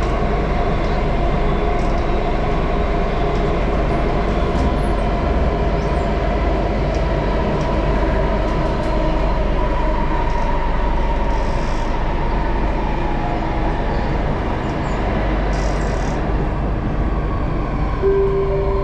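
Cabin noise of a Singapore MRT train running through a tunnel, heard from inside the car: a steady rumble of wheels and running gear with a faint whine, plus a few light rattles.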